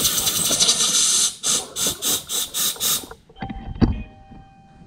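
Compressed-air blow gun hissing as it blows debris out of a jet ski's pump and ride-plate area. It gives one long blast, then about six short bursts in quick succession, and stops about three seconds in. A single knock follows near the end.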